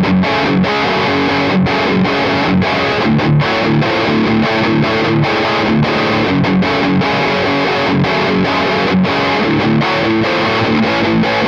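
High-gain distorted electric guitar riff: a recorded guitar played back through a TS-999 overdrive boost into the Nick Crow Lab 7170 Lead amp simulator, a Peavey 5150-style tone, with a GTR cabinet simulation. Loud and dense, with brief stops between the strokes of the riff.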